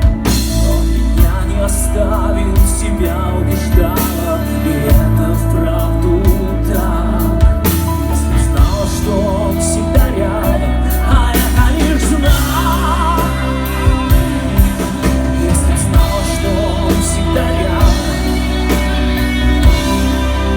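Rock band playing a song with singing, drums keeping a steady beat under bass and guitars.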